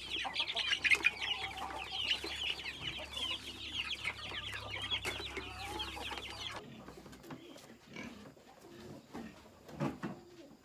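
Many chickens calling at once, a dense run of short high clucks and cheeps. It cuts off abruptly about two-thirds of the way in, leaving quieter, lower, scattered animal sounds.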